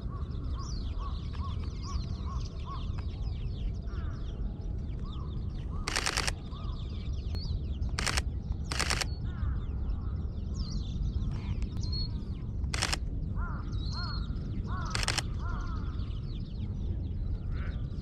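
A Sony A7III's shutter firing in five short rapid bursts of continuous shooting, amid birds calling and chirping over a steady low background rumble.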